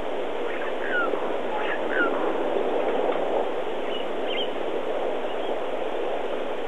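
Steady noise of a game-drive vehicle on the move, with a few short, falling bird calls in the first two seconds and a couple of higher, briefer calls about four seconds in.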